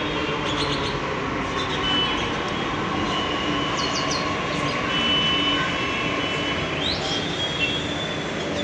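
A Delhi Metro train running into the station alongside the platform and slowing to a stop: a steady rumble of wheels and traction with a thin steady whine, a few short high chirps midway and a brief rising squeal near the end.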